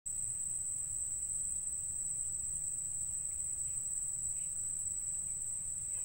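Insects in the reeds giving one unbroken, high-pitched trill, over a low rumble.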